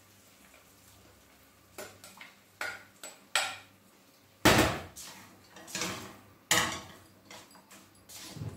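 A spoon knocking and scraping cooked rice out of a glass bowl into a frying pan, then stirring it through the pan. It comes as a string of irregular sharp knocks of the spoon against the bowl and pan, the loudest about halfway through.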